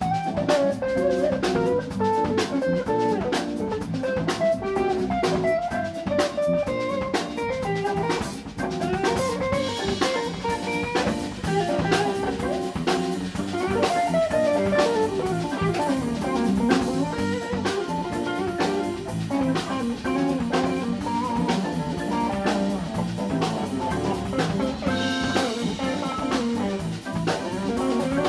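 A live organ quartet playing jazz: Hammond B-3 organ and electric guitar over drums and bass, with a melody line moving over a steady beat of drum and cymbal strokes.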